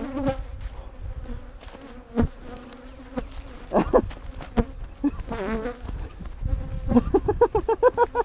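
Swarm of bees from a disturbed hive buzzing close around the microphone, the buzz rising and falling in pitch as bees fly past, with a few sharp knocks. Near the end a rapid run of short pulsed calls, about six a second, starts up.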